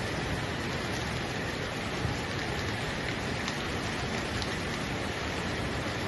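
Heavy rain falling steadily, a dense even hiss of drops on hard surfaces.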